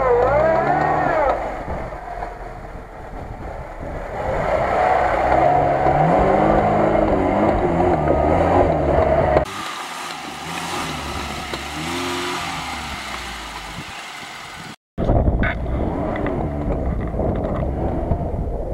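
Lada Niva engine revving under load, its pitch rising and falling as the car climbs steep dirt banks. The sound breaks off abruptly about halfway through and again for a moment a few seconds later, where separate clips are cut together.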